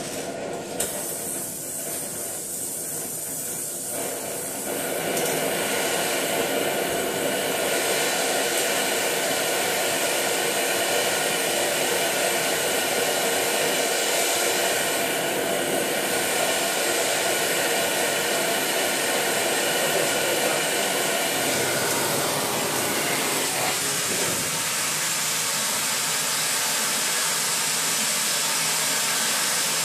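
Oxy-fuel cutting torch on a CNC torch table hissing steadily, with a sharp click just under a second in and the hiss turning louder from about five seconds in.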